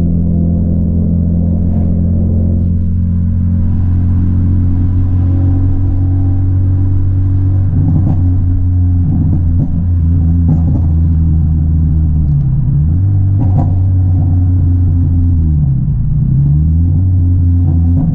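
Honda Civic EP3 Type R's 2.0-litre K20 four-cylinder engine, Kpro-tuned, running at steady revs. From about eight seconds in, the revs dip and climb again several times, with a few sharp exhaust pops.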